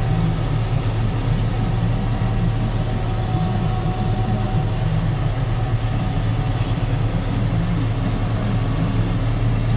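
Steady drone of a tractor's Perkins diesel engine heard from inside its cab, running under load without change, mixed with the Claas Jaguar 890 forage harvester working just ahead in maize.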